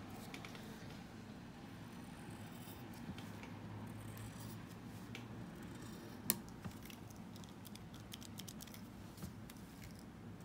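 Pencil scratching faintly across paper as long lines are drawn, with scattered light taps and one sharper click about six seconds in.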